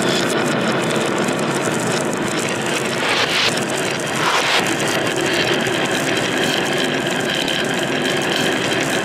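Many marbles rolling together down the wooden wave slopes of a HABA marble run, a dense continuous clatter of marbles on wood, with brief louder bursts about three and four seconds in.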